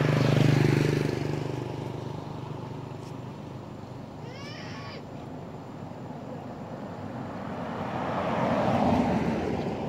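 Motor vehicles passing on the road: one going by at the start, another swelling up and passing near the end. About halfway through there is a short quick run of high chirps.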